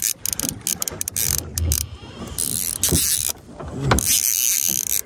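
Click-and-pawl fly reel ratcheting in rapid bursts of clicking as line goes on and off the spool while a hooked trout is played, with brief pauses between bursts.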